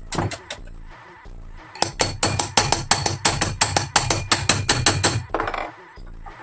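Rapid hammer taps, a few at the start and then a quick, even run of about five or six a second that stops shortly before the end.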